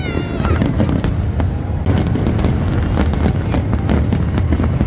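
Fireworks exploding in quick succession: a dense run of sharp bangs and crackles over a continuous low rumble, thickening and getting louder about two seconds in.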